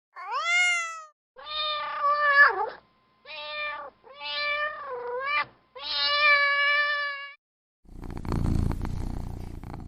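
A domestic cat meowing five times, drawn-out calls with the first one rising and then falling in pitch. About eight seconds in, the meows give way to a low, rumbling cat purr.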